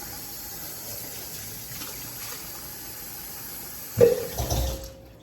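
Steady rushing of running water, then a sudden loud thump about four seconds in, after which the water sound stops.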